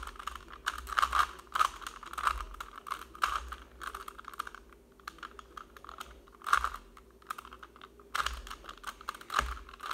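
Rubik's cube being turned by hand: quick, irregular plastic clicks and clacks as its layers are twisted.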